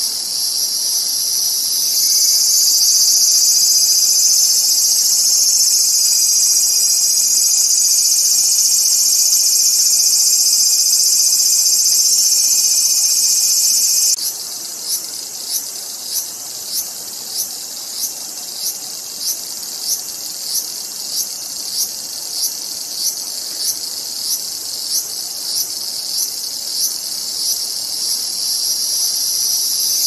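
Cicada singing: a loud, steady, high-pitched buzz that about halfway through changes abruptly to a pulsing call, about one and a half pulses a second. The call swells back toward a steady buzz near the end.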